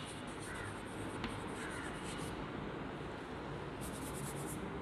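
Chalk writing on a chalkboard: faint taps and scratching strokes, with a run of quick scratchy strokes near the end.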